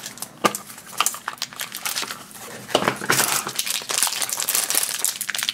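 Hands opening a plastic button-shaped blind-pack container with a few sharp plastic clicks, then crinkling the foil wrapper from inside it, with steady crackling from about halfway in.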